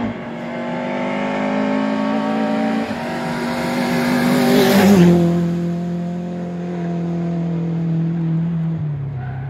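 A hillclimb race car's engine at full throttle, climbing in pitch as it comes up the road, with a gear change about three seconds in. It passes close by about five seconds in, which is the loudest moment, and the engine note then drops and holds steady as the car pulls away.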